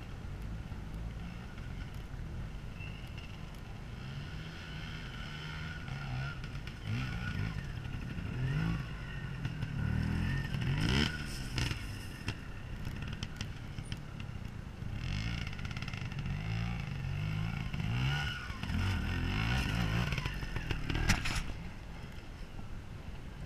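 Trials motorcycle engine running with repeated short rises and falls in revs as the bike is worked over rock, busiest in the middle and later part. There are a couple of sharp knocks, one about halfway through and one near the end.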